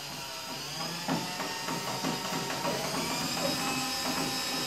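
A small electric motor running steadily with a high whine, with scattered clicks and knocks from about a second in.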